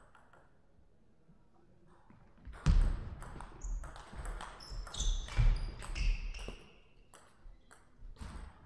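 Table tennis rally: the plastic ball clicking rapidly off the bats and table from about three seconds in until about six and a half seconds, mixed with heavy thuds and short high squeaks. A few light clicks of the ball bouncing follow near the end.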